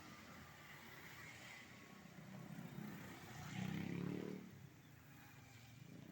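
A motor vehicle passing close by, its engine growing louder to a peak about four seconds in and then fading away.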